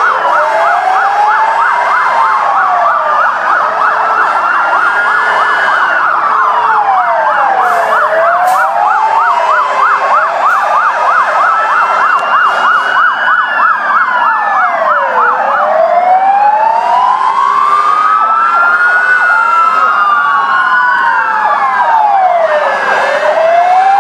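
Several fire truck sirens sounding at once: slow wails rising and falling out of step with each other, with a fast yelp through the middle stretch, and lower steady tones coming and going beneath.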